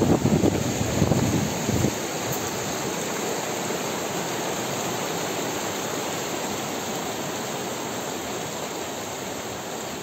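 Spring-fed mountain stream rushing over rocks in a steady torrent. Wind buffets the microphone with low rumbles for about the first two seconds.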